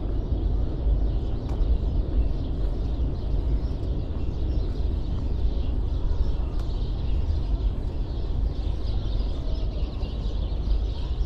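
Outdoor street ambience: a steady low rumble with small birds chirping throughout.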